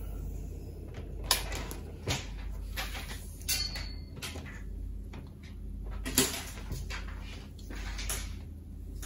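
Insulated wire being handled and pulled along the edge of a wooden worktop while it is measured out: a handful of irregular short swishes and light knocks.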